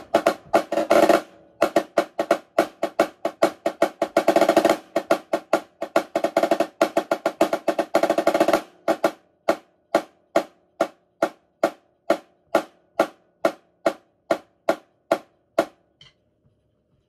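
Marching snare drum played with sticks: fast rolls and dense rudiment patterns for about nine seconds, then a run of evenly spaced single strokes, a little over two a second, that stops about a second before the end.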